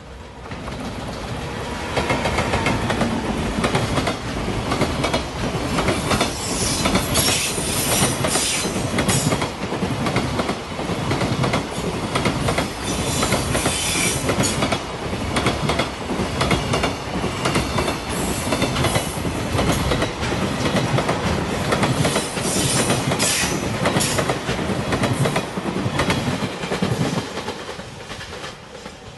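JR Freight container train hauled by an EF210 "Momotaro" electric locomotive passing close by. It swells as the locomotive arrives about two seconds in, then the long string of container wagons goes by with a steady clatter of wheels over the rails, dying away near the end as the last wagons pass.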